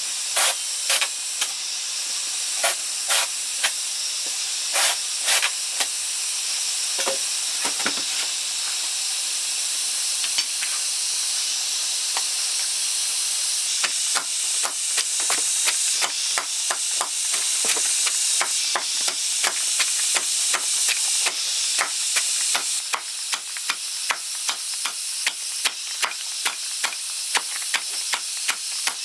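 Sharp repeated knocks over a steady high hiss: a few scattered strikes at first, then from about halfway a steady run of roughly two strikes a second.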